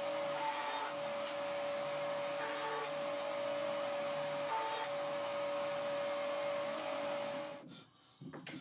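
Vertical band saw running with a steady hum and hiss while cutting a block of bog oak. The sound cuts off suddenly near the end, followed by a few light knocks.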